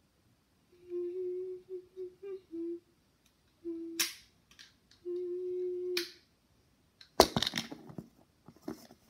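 A child humming several short notes held at one steady pitch, with sharp clicks about four and six seconds in, then a loud cluster of knocks and rustling near the end.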